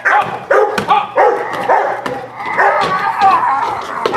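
A protection dog barking several times in quick succession, about two barks a second, during bite work.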